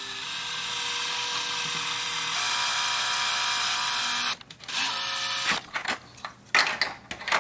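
DeWalt cordless drill running as it bores a hole through the plastic grille: a steady motor whine for about four seconds that steps up in pitch partway through, stops, then runs again briefly. Several sharp clicks and knocks follow near the end.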